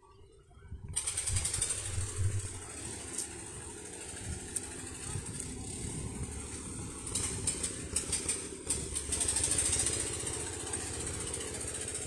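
An engine running steadily, coming in about a second in, under a constant high hiss.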